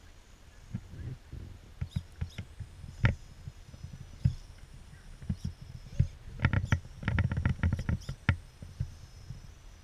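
Radio-controlled Axial AX10 rock crawler clambering over stone ledges: scattered knocks and scrapes of its tyres and chassis against the rock, with a quick run of clicks in the second half.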